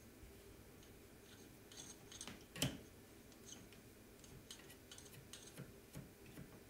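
Faint metal clicks and light scrapes as a 3D printer's Z-axis lead screw and coupler are fitted by hand, with one sharper click about two and a half seconds in.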